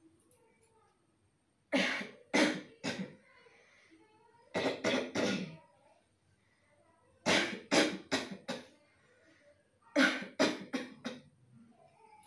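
A person coughing deliberately in four fits of three or four hard coughs each, with a short pause between fits.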